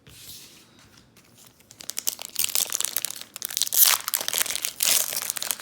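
Foil wrapper of a Pokémon TCG Sword and Shield booster pack crinkling and crackling as it is torn open by hand. It starts about two seconds in.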